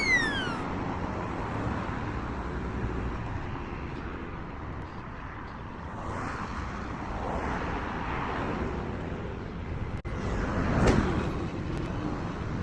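Street traffic noise: vehicles passing on a road, with one passing louder about eleven seconds in. A loud falling whistle-like tone dies away at the very start.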